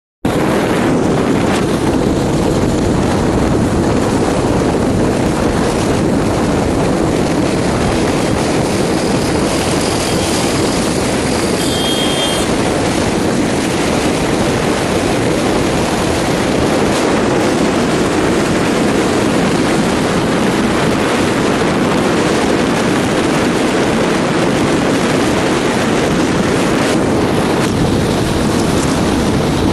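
Steady road and wind noise of a vehicle travelling at speed along a highway.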